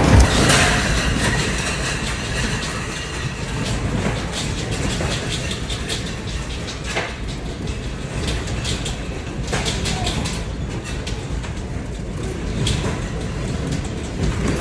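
Train running: a steady rumble and hiss with a few sharp clicks scattered through it.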